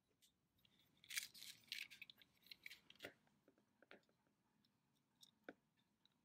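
A metal blade scraping and shaving the edge of a 3D-printed plastic hex nut: a quick run of short scratchy strokes, then a few single scrapes near the end.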